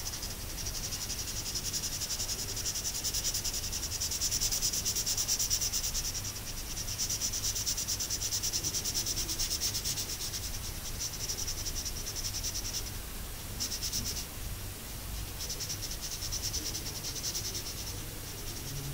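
Felt-tip marker scribbling back and forth on paper as a shape is colored in: a fast, even, scratchy squeak that stops briefly twice about two-thirds of the way through.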